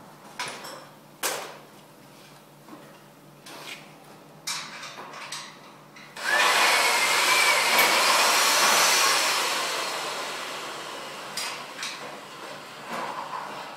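A few knocks, then a handheld power tool that starts suddenly about six seconds in, runs loud for about three seconds, then winds down and fades.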